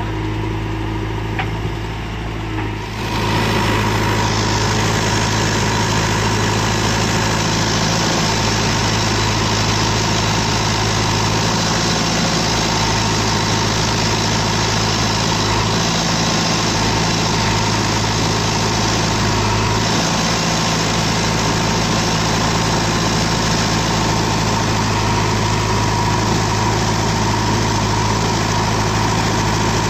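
Heavy diesel engine of a backhoe loader or farm tractor running steadily; about three seconds in it grows louder and fuller, then keeps running at that level.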